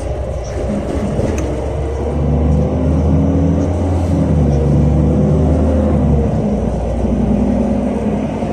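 Weichai WP7NG260E51 compressed-natural-gas engine of a NEFAZ 5299 city bus, heard from inside the cabin, pulling under load with a steady low drone that grows louder over the first couple of seconds. The deepest part of the note drops away about six seconds in, leaving a lighter engine hum.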